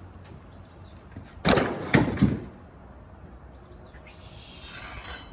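Demolition wood debris being thrown down onto a pile: three loud clattering knocks in quick succession about a second and a half in, then a hissing scrape near the end. A short chirp, like a small bird, repeats faintly in the background.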